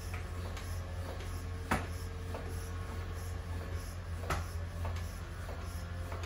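Floor pump being worked by hand to inflate a tubeless mountain bike tire over a Cushcore insert, with a few sharp clicks, the loudest about two seconds in, over a steady low hum.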